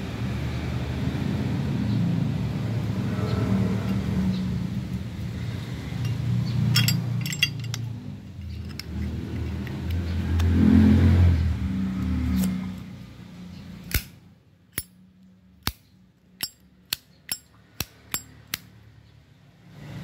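A low background rumble through the first dozen seconds, with a few light metallic clinks about seven seconds in. Then, in the quiet, a row of about nine sharp metal clicks over four seconds from a Zippo lighter's case and insert being handled.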